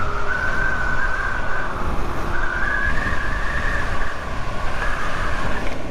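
Zero SR/F electric motorcycle's drive whine as it accelerates: a single whine that climbs in pitch, dips briefly about four seconds in, then climbs again, over a steady rush of wind and road noise.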